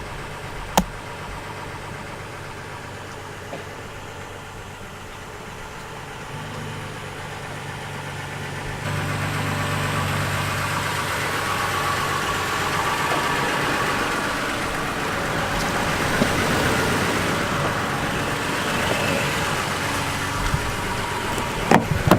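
Truck engine idling steadily, with one sharp click about a second in. From about nine seconds a louder, even rushing noise joins the engine.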